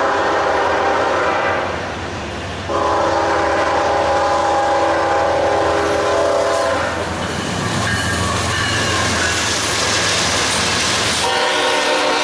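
Locomotive air horn sounding a chord in blasts: a short blast, a longer one of about four seconds, then a few seconds of rushing train noise without the horn, and another blast starting near the end.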